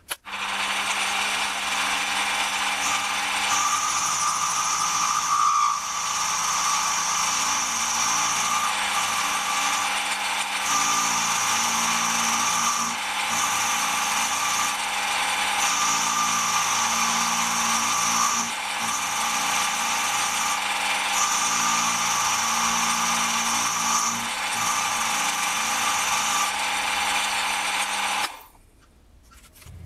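Small milling machine running an end mill through a metal part held in a vise. A steady motor whine carries a high cutting tone that swells and fades every couple of seconds as the cut is fed. It stops abruptly shortly before the end.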